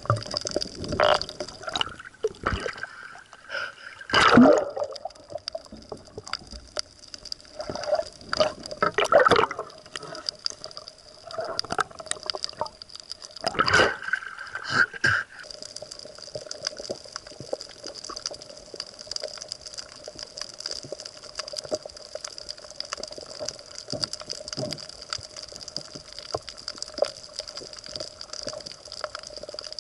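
Water gurgling and sloshing around the microphone, with a constant scatter of small clicks. Louder gurgling swells come about 4 s, 9 s and 14 s in.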